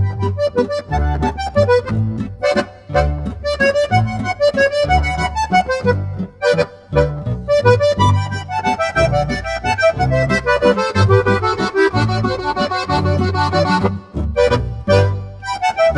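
Instrumental background music with a quick melody over a steady bass beat.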